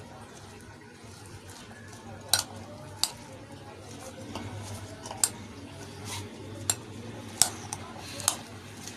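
Metal spoon stirring chickpea chaat in a glass bowl: soft scraping with several sharp, irregularly spaced clinks of the spoon against the glass, over a low steady hum.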